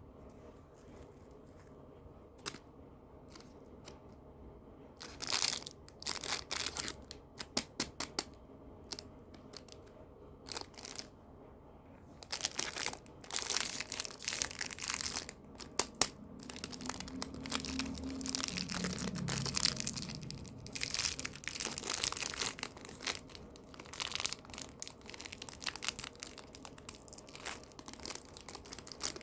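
Plastic candy wrappers and packaging being crinkled and torn open: a few scattered crackles about five seconds in, then continuous crinkling and tearing from about twelve seconds on.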